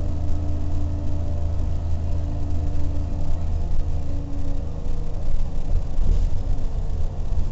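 Cabin noise aboard a 1992 Orion V transit bus at cruising speed: its Detroit Diesel 6V92TA two-stroke V6 diesel running steadily under a low road rumble. The rumble grows rougher about two thirds of the way through.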